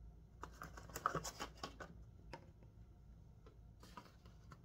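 Faint clicks, taps and rustles of a small tape-wrapped cardboard box being handled and opened, most of them in the first two seconds and a few more near the end.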